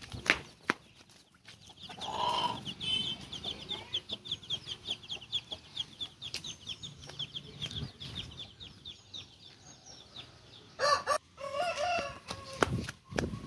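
Chickens clucking and squawking, with a long run of fast, high, repeated notes through the middle and a loud squawk about eleven seconds in. A few sharp knocks near the start and the end.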